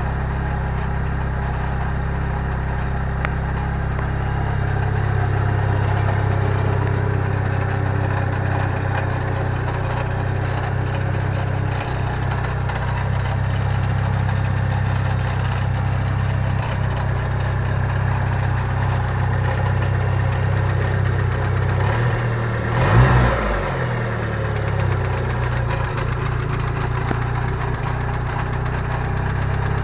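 Car engine idling with a rattling knock, which the owner traced to a loose starter ring gear on the aftermarket Fidanza flywheel after first fearing rod bearings. The engine is blipped once briefly about three-quarters of the way through, then settles back to idle.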